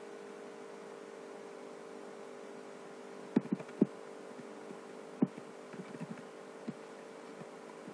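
Steady electrical hum with a few sharp computer clicks: three in quick succession about three and a half seconds in, another just after five seconds, and a few fainter ones after that, as a mouse and keyboard are worked to place the cursor and select text.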